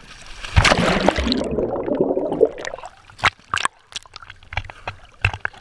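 A splash as a swimmer goes off a sit-on-top kayak into the sea, followed by about two seconds of bubbling and gurgling heard through a camera dipping below the surface. Then scattered sharp clicks and small splashes of water at the microphone.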